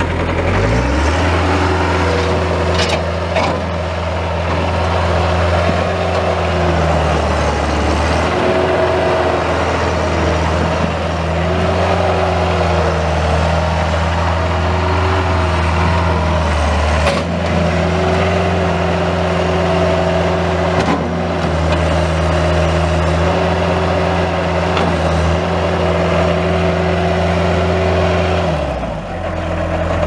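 Kubota four-cylinder diesel engine of a 1994 Bobcat 753 skid steer running at high throttle while the machine drives and turns. The engine speeds up about a second in, holds with small dips, and drops back near the end, with a few short knocks along the way.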